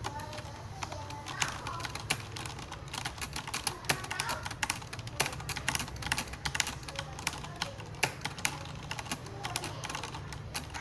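Typing on a Corsair Strafe mechanical keyboard with Cherry MX Red linear switches: irregular key clacks, several a second.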